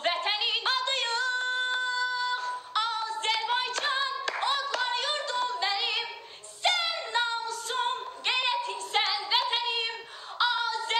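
A woman singing solo and unaccompanied, a high melody with vibrato, holding one long note about a second in before moving on through shorter phrases.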